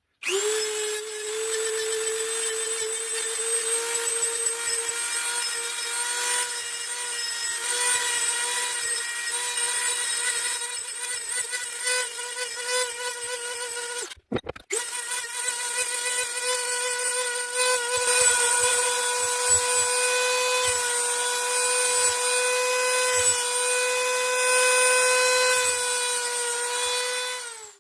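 Dremel rotary tool running at a steady high whine as it grinds, sharpening the teeth of a hole saw. It cuts out briefly about halfway through, starts again, and winds down at the end.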